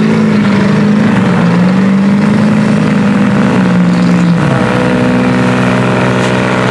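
Big engines of lifted off-road trucks running under load as they churn through deep mud, the engine note shifting in pitch a few times.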